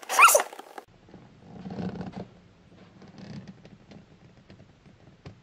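A soft squishy toy squashed into a small plastic display compartment: a short, sharp squeak that slides up and down right at the start, then creaking, rubbing plastic for about a second and a half, and a few light clicks.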